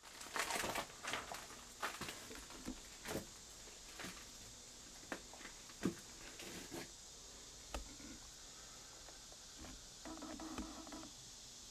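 Footsteps crunching over loose boards and debris on a streetcar floor: irregular cracks, clicks and knocks, busiest in the first second and scattered after.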